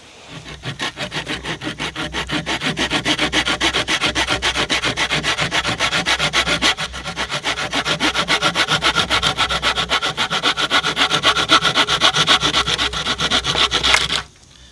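Folding pruning saw cutting through a wooden pole, in quick, even back-and-forth strokes with a brief pause about seven seconds in; the sawing stops just before the end.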